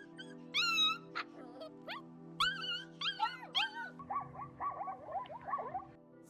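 An animal's high-pitched cries over background music with steady held tones. One long call comes about half a second in, then a string of short arched calls, then a fast run of shorter calls near the end.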